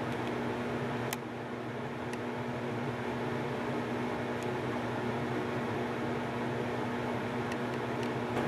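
Steady kitchen fan hum with a low drone, plus a few faint clicks, while a pot of zosui simmers on a gas burner.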